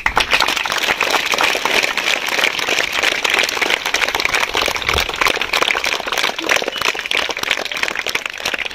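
A large crowd of schoolchildren applauding: dense, steady clapping that breaks out all at once.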